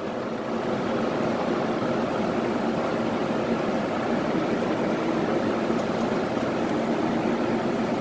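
Trane XL 1200 Super Efficiency outdoor air-conditioner unit running: its condenser fan makes a steady whoosh, with a faint low hum underneath.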